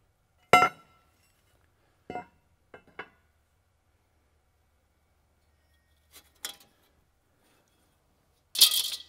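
Steel shear bar from a forage harvester clanking against metal as it is pulled out and set down: a loud ringing clank about half a second in, a few lighter knocks around two to three seconds, two more near six seconds, and a short rattling scrape near the end.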